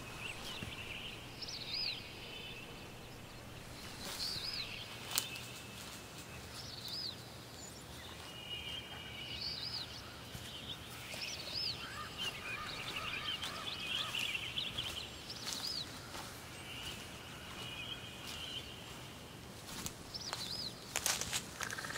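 Several small birds calling and singing, short arching chirps repeated every second or two, over a faint steady hum. A sharp click sounds about five seconds in, and a few more near the end.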